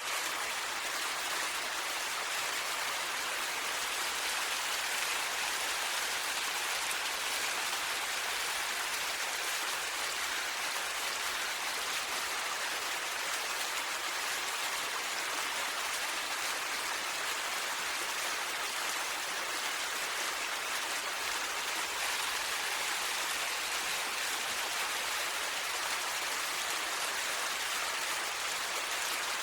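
Valley ambience: a steady, unchanging hiss with no distinct events.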